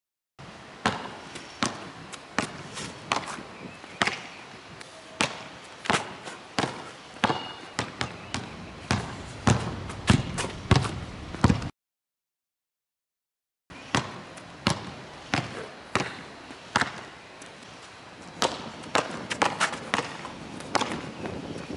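A basketball dribbled hard on asphalt in between-the-legs crossover dribbles, bouncing about twice a second. The bouncing cuts out for about two seconds past the middle, then resumes.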